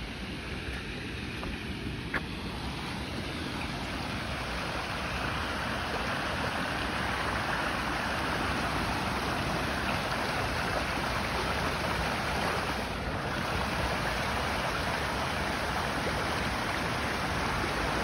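Steady rush of flowing river water, growing louder over the first several seconds and then holding steady, with a single faint click about two seconds in.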